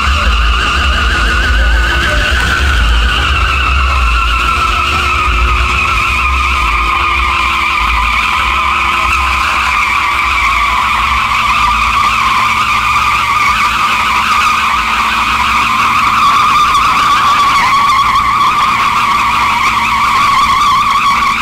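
Chevrolet Silverado pickup doing a burnout: one rear tire spinning on concrete in a loud, continuous tire squeal that wavers slightly and drifts a little lower in pitch over the first few seconds, over a low engine rumble. It is a one-wheel peel: only one rear wheel is spinning.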